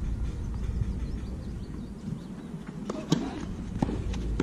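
Low outdoor background murmur, then about three seconds in a tennis ball is struck with a short grunt from the player, and a second sharp ball impact follows under a second later.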